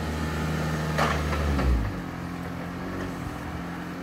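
Vehicle engine running hard, its revs falling away about two seconds in and settling to a steady lower note, with a sharp clack about a second in.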